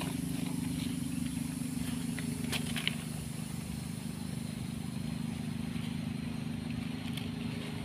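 A low, steady engine hum that cuts off abruptly at the end, with two short clicks about two and a half seconds in.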